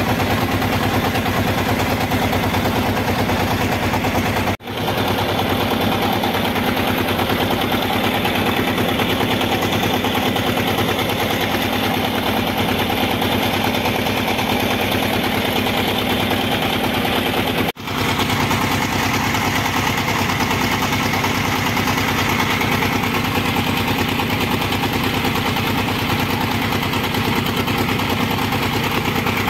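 Boat engine running steadily with a fast, even clatter; the sound drops out for an instant twice.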